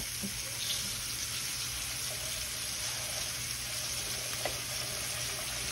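Flour-dusted beef short ribs sizzling steadily in hot oil in a skillet as they sear.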